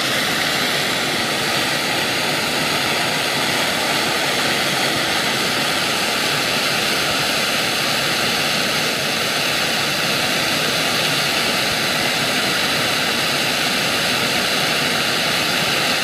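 Blowlamp flame burning steadily as a steady hiss against the end of a copper pipe, deliberately overheating it until the copper blackens and tarnishes.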